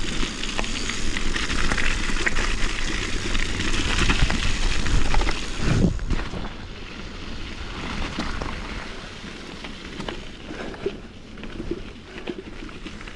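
Mountain bike rolling fast, with wind rushing over the ride-mounted mic and tyres running over gravel; about six seconds in it slows and the rush falls away, leaving quieter tyre crunch and small clicks.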